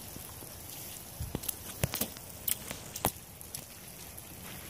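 A toddler's rubber rain boots stepping through mud and shallow puddle water: a handful of short, irregular footsteps, the sharpest about two and three seconds in.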